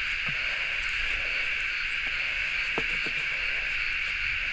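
A steady, high-pitched chorus of insects, with a few faint clicks as a filleting knife cuts through a small perch's rib cage and backbone.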